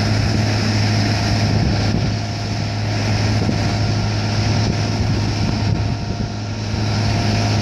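Diesel engine of a rubber-tyred gantry crane running steadily, a continuous low hum under a noisy mechanical drone.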